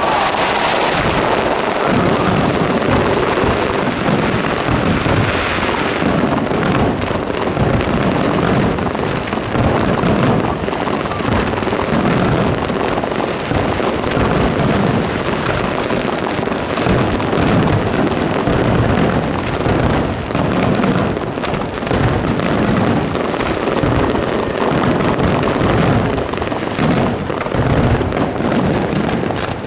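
Aerial fireworks display fired at close range, almost overhead: a rapid, continuous barrage of shell bursts and crackling with no let-up.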